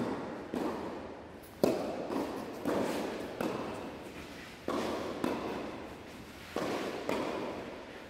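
Tennis ball struck by rackets and bouncing on the court during a doubles rally: a string of sharp hits about a second apart, each trailed by echo from the large indoor hall, the loudest about a second and a half in.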